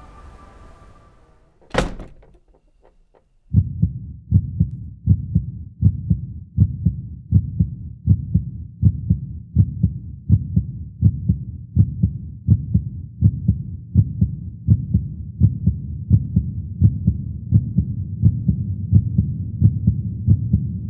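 One sharp bang about two seconds in. From about three and a half seconds, a steady low thudding follows, about one beat every three-quarters of a second.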